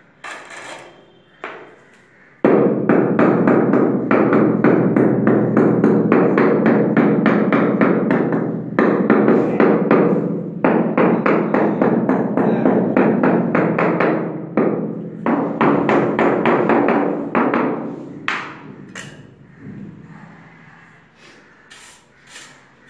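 Rapid, steady tapping of a hammer on a large vitrified floor tile, bedding it down into the mortar. It starts suddenly a couple of seconds in, breaks off briefly a few times, and dies away well before the end.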